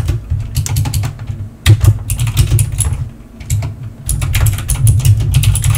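Loud, rapid computer keyboard typing: a dense clatter of keystrokes with a low thud under them, easing off briefly a little past one second in and again around three seconds in.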